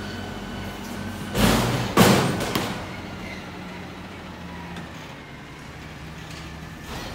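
Front-load garbage truck emptying a dumpster into its hopper: two loud bangs about half a second apart as the container is dumped, over the steady running of the CNG truck's engine and hydraulics as the arms then lower the dumpster.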